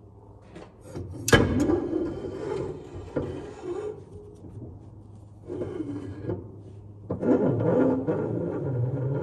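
A steel rear axle shaft being drawn out of its axle tube: a sharp metal clank about a second in, then metal-on-metal scraping with a ringing, wavering squeal, a shorter scrape in the middle and a longer, louder one near the end. A low steady hum runs underneath.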